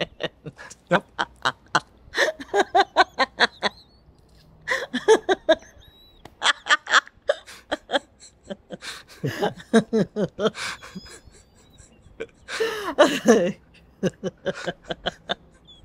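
A woman and a man laughing hard together in repeated fits, each burst made of quick rapid pulses of laughter with short pauses between them.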